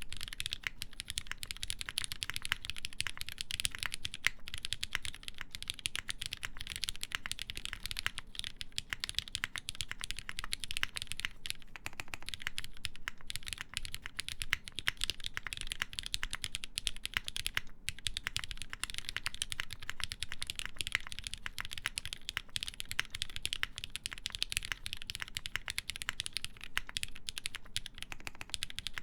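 Continuous fast typing on a mechanical keyboard with lubed linear Cherry MX Black switches, a half-aluminium plate and ABS keycaps. A dense, steady stream of soft key clacks and bottom-outs runs on, with a brief lull about twelve seconds in.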